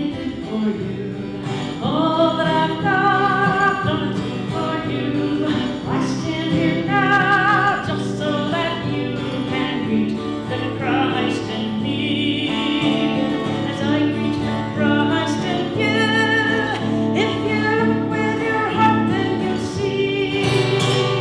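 A woman singing slow, held notes with vibrato, accompanied by a strummed acoustic guitar: a country song.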